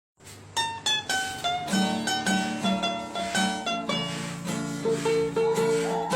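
Background music: a bright plucked-string tune on guitar or ukulele, with picked melody notes over strummed chords.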